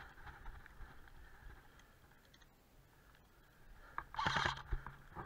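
A short burst of airsoft rifle fire about four seconds in, after a few seconds of near quiet with faint ticks.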